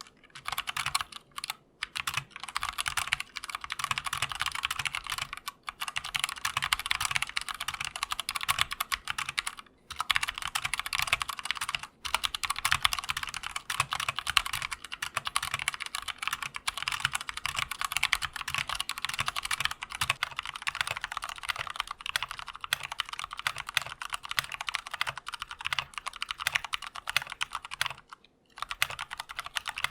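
Mechanical keyboard with Outemu Brown tactile switches (Redragon K530) being typed on fast and continuously, a steady stream of key clicks broken by a few short pauses.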